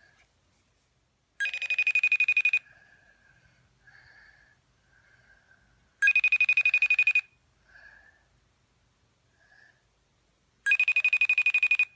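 Phone call ringing on a smartphone: three short, rapidly trilling rings about four and a half seconds apart, the call not yet answered.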